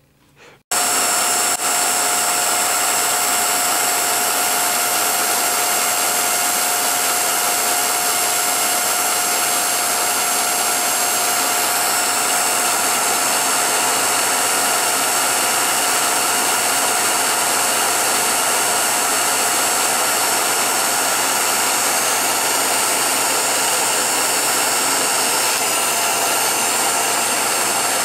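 Motor and cooling fan of a 1949 Revere P-90 8mm projector running steadily, with its chain drive turning. It starts abruptly about a second in, a steady whine over a constant whirring hum.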